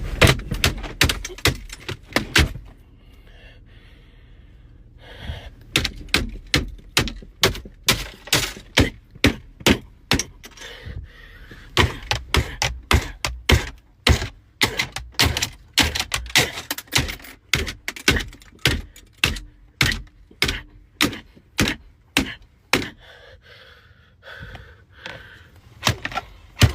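Repeated hard hammer blows, about two to three a second in a steady rhythm. A short run of blows, a pause of about three seconds, then a long unbroken run that stops a few seconds before the end.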